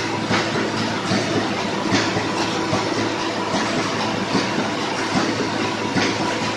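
Automatic wire mesh welding machine running: a steady electrical hum under a sharp mechanical clack that repeats roughly once a second as the welding head fires and the mesh is advanced.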